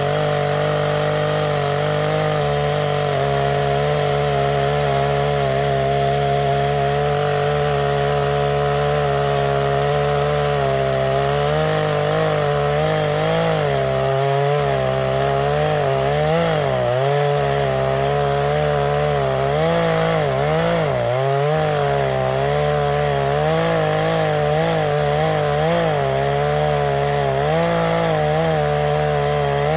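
Chainsaw running at high speed, cutting into the trunk of a dead pine tree. From about halfway through, its pitch repeatedly dips and recovers as the cut loads the chain.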